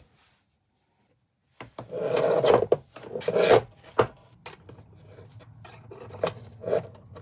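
An 80 W soldering iron being handled and fitted into its metal bench stand: a couple of seconds of scraping and rubbing, starting about a second and a half in, then scattered clicks and knocks as it settles.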